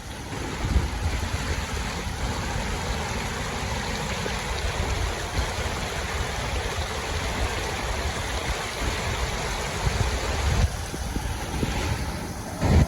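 Whitewater rapids rushing in a steady, even roar, with gusty rumbling of wind on the microphone underneath.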